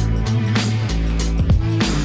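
Background music: deep bass notes and drum hits at a steady beat.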